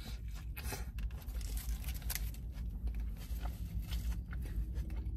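Eating a lettuce-wrapped burger: irregular crisp crackles and crunches from the lettuce and its wrapper as it is bitten and handled.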